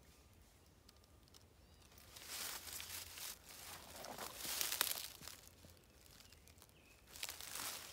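Dry fallen leaves rustling and crackling in three bursts: one about two seconds in, a louder one around four to five seconds, and another near the end.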